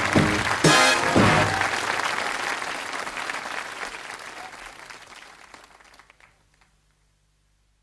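Studio audience applause over the last brass notes of the closing theme music, the music ending within the first second or two and the applause fading away over the next few seconds.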